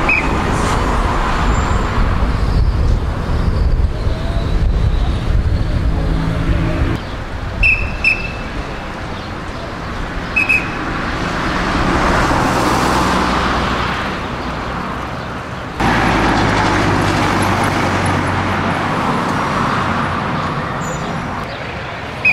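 Short, sharp blasts of a hand-held whistle, blown as a command to stop and not cross: one at the start, a quick pair about eight seconds in, and one more a couple of seconds later. Steady street traffic noise runs underneath, with a vehicle engine running through the first third.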